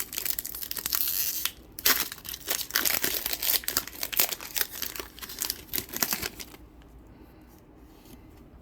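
Foil wrapper of a Pokémon trading card booster pack being torn open and crinkled, with sharp rips among the crackling; it stops about six and a half seconds in.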